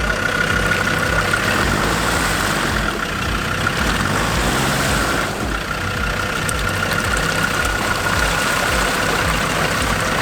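Off-road 4x4's engine idling steadily, with an even low pulsing.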